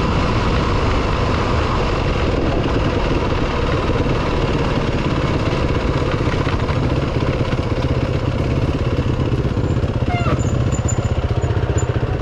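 Yamaha WR250F four-stroke single-cylinder dirt bike engine running steadily under way, heard from the bike itself.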